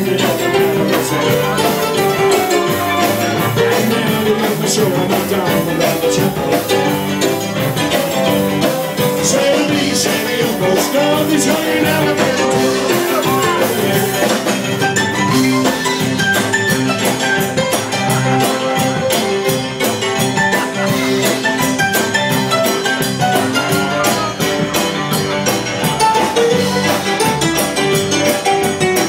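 Live band playing loud music with electric guitar and a drum kit keeping a steady beat.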